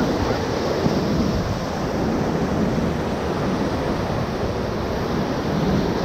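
Whitewater rapids rushing around an inflatable raft, a loud, steady noise of churning water.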